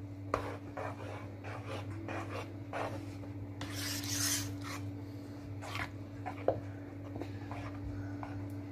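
A spatula stirring and scraping a thick cornstarch-and-coconut-milk pudding batter around a nonstick pan, in short repeated scrapes with one longer scrape near the middle. A steady low hum runs underneath.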